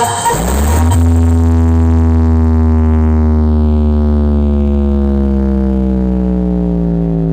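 Deep synthesized bass tone played loud through a stack of subwoofer boxes. It sweeps up about half a second in, then is held and slowly sinks in pitch.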